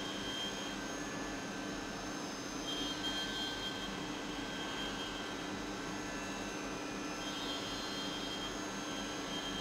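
CNC milling machine running: a steady mechanical hum with a high whine that comes and goes three times, about every four to five seconds.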